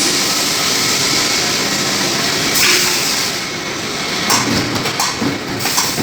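Industrial rubber cutting machine running with a steady mechanical noise, joined by a few short clicks and knocks in the last two seconds.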